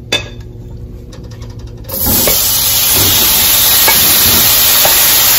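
Thin slices of seasoned flank steak tipped into hot oil in a pan, setting off a loud, steady sizzle that starts suddenly about two seconds in. Before it, only a faint hum and a short click.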